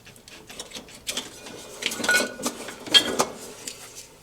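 A refrigerator compressor's start relay being wiggled back and forth and worked off the compressor's terminals: irregular clicks and small scrapes, loudest about two and three seconds in.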